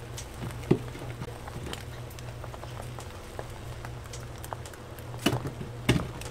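Light clicks and knocks of crepe-making utensils, scattered and irregular, with one sharp knock under a second in and two louder ones near the end, over a steady low hum.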